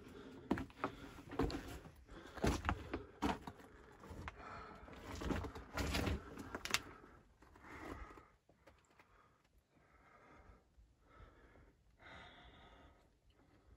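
Footsteps crunching and scraping over loose rock and gravel in a mine tunnel, with close clatters of stones underfoot. About halfway through the steps thin out and go quiet, leaving soft breathing about once a second.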